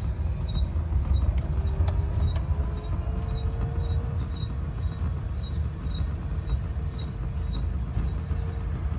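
Urban Triker electric trike on the move: a steady low rumble with a faint motor whine that slowly rises and falls in pitch. A faint high ticking repeats evenly throughout.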